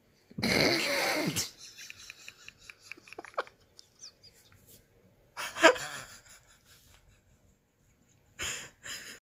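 A person laughing in bursts: a long burst near the start, a sharper, higher one about halfway through, and two short ones near the end.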